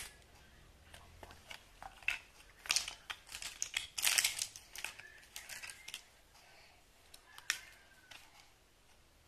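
Plastic toy parts being handled: scattered clicks and short rustling scrapes, busiest between about three and five seconds in.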